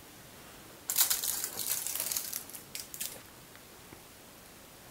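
Aluminium foil lining a baking pan crinkling and rustling as the pan is picked up, starting suddenly about a second in and dying away over about two seconds.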